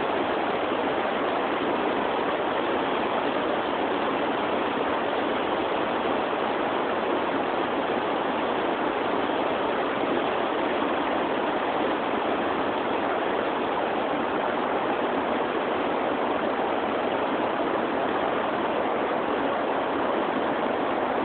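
River water rushing in a steady, unbroken flow.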